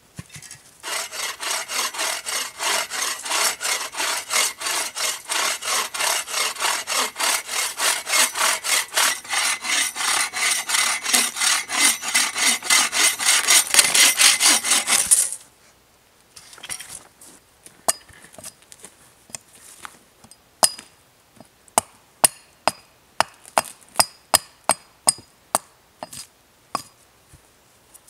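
A bow saw cutting through a thin log with steady back-and-forth strokes, about two or three a second, stopping suddenly about fifteen seconds in. Then a string of sharp wooden knocks from a hatchet striking a wooden stake.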